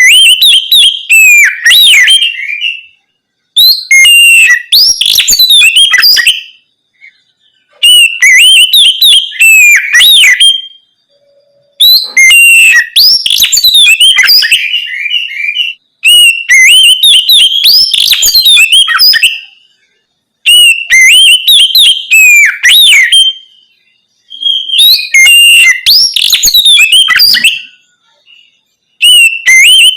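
Oriental magpie-robin (kacer) singing loud, open 'ngeplong' song in phrases of two to three seconds with short pauses between them, about seven phrases in all. The phrases mix clear whistles and pitch glides with rapid chattering notes.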